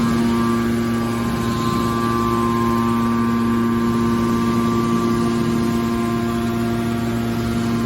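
Hydraulic baler's electric motor and pump running with a steady hum that holds a constant pitch.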